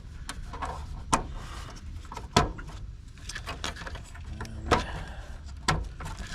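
Sharp plastic and metal clicks and knocks, about four spread out, as a replacement heat pump defrost board is pressed and fastened into its mounts in the control panel.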